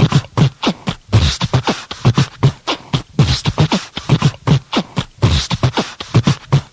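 Underground electronic dance track playing through a sound system, at this point drums only: a fast, even drum-machine beat of kick drums and hi-hats with no melody.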